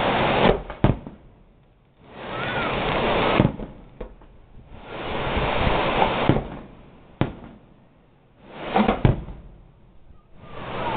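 Fireworks bursting: swells of crackling hiss lasting a second or two, about every three seconds, each broken by sharp bangs.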